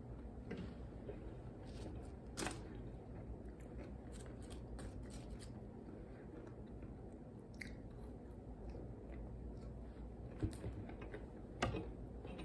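A person chewing and eating french fries, with soft mouth sounds and scattered short clicks, the loudest a little after two seconds and near the end.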